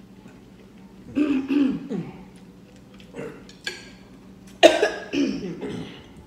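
A person coughing in several rough, throaty bouts, the loudest starting sharply about two-thirds of the way through.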